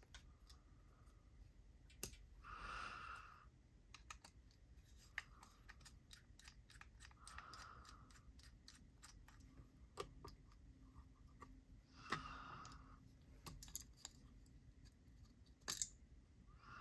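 Faint, scattered clicks and ticks of small metal tools and parts of a folding knife being handled during reassembly, with a few sharper clicks spread through.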